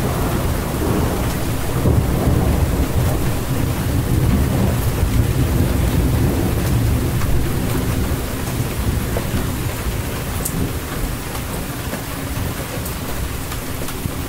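Steady heavy rain with a long roll of thunder rumbling under it. The rumble is strongest in the first half and slowly eases toward the end.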